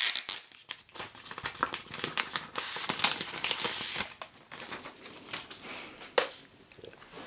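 Thin protective plastic film being peeled off an Apple Magic Trackpad 2 and handled: crinkling and crackling, with a longer peeling rasp around the middle and a sharp crackle about six seconds in.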